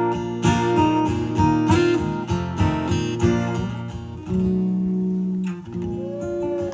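Acoustic guitar playing the closing bars of a song: strummed chords for about four seconds, then held chords left ringing near the end.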